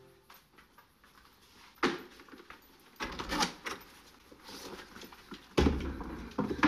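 Soft rustling in a quiet room, a sharp click about two seconds in, and a louder thud near the end as a door is opened.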